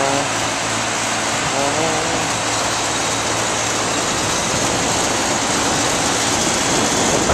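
Steady whooshing fan noise and a low, even hum from rooftop packaged HVAC equipment running.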